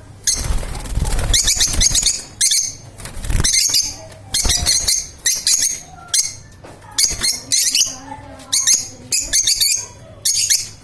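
Lovebirds chirping in repeated shrill bursts, several calls a second in clusters, with a fluttering, rustling noise of wings in the first two seconds and again briefly around three seconds.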